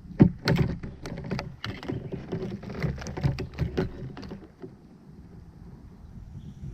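Irregular knocks, clicks and rattles on a plastic sit-on-top kayak as a just-caught bass and fishing gear are handled on board, stopping about four and a half seconds in.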